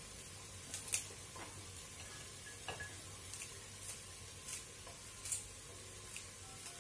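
Kitchen scissors snipping green beans into a pot, with repeated short sharp snips at an uneven pace of roughly one or two a second. Underneath, a faint steady sizzle of onions and peppers frying in oil.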